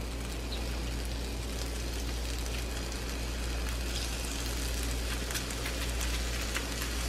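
Chickpeas and red bell pepper sizzling in a frying pan: a steady hiss with scattered small pops, over a steady low hum.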